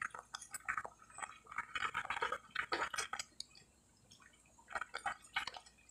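Spaghetti being stirred in a pot of boiling water with a plastic slotted spoon: irregular splashing and bubbling with light taps of the spoon against the pot. There is a brief pause just past the middle.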